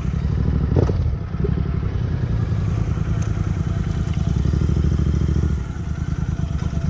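Motorcycle engine running at low revs with a pulsing beat as the bike rolls along a rocky dirt trail, with a knock a little under a second in. The engine note drops about five and a half seconds in as the throttle is eased off.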